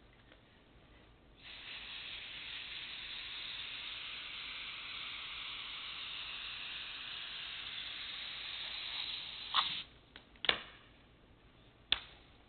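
Compressed air from an air-compressor nozzle hissing steadily into a bowling-lane seam for about eight seconds, blowing out and drying the isopropyl alcohol cleaner, then cutting off. A few sharp knocks follow near the end.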